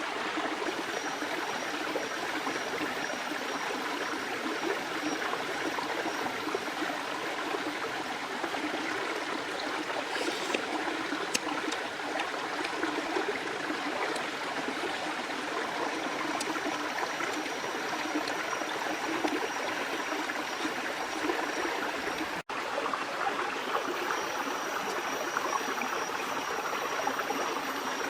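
Running water of a river or stream flowing steadily, a continuous even rush with a momentary break about three-quarters of the way through.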